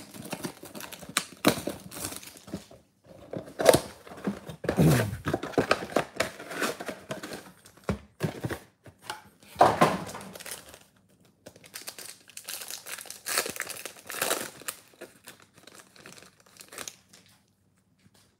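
A 2022 Bowman Baseball mega box being torn open by hand, then its wrapped card packs crinkling and tearing as they are handled and opened. The rustling comes in irregular bursts and stops shortly before the end.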